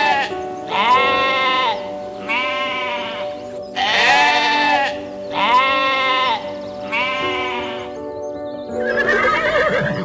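Sheep bleating: a run of long, wavering bleats about every one and a half seconds, over steady background music. Near the end a horse whinnies.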